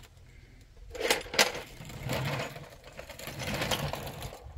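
Metal tractor parts being handled: two sharp clinks about a second in, then rattling and shuffling.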